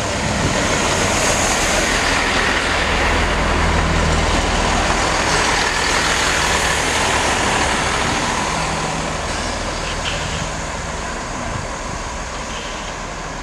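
Class 165 diesel multiple unit passing close by: diesel engine hum and wheel-on-rail noise, loudest in the first few seconds and fading after about eight seconds.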